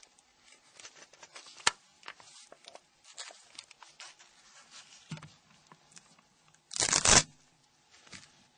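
Small clicks and scratches from a screwdriver and hands working on a mobile phone's plastic casing, with one sharp click about two seconds in and a brief, louder rasp about seven seconds in.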